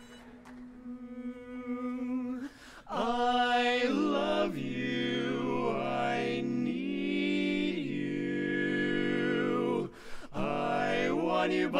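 Barbershop quartet of four men singing a cappella in close four-part harmony. A single steady note is held for the first two seconds or so, the chord comes in about three seconds in, and there is a short break near the end before the singing resumes.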